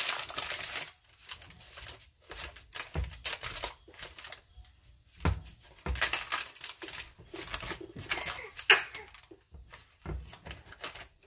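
Parchment paper crinkling and rustling against a ceramic baking dish as hands press a crumbly oat mixture into it, in irregular bursts with a few soft thuds.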